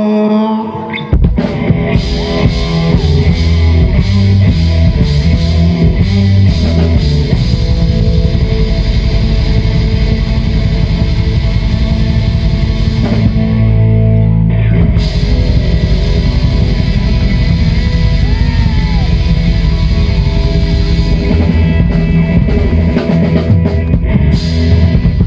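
Live rock band playing loud: drum kit and electric guitars in a full-band instrumental passage that comes in about a second in, after a sung line ends.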